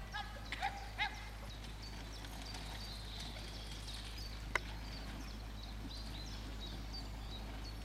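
A single carriage horse trotting over grass, its hoofbeats faint under a steady low rumble. Short high chirps come and go, and there is one sharp click about four and a half seconds in.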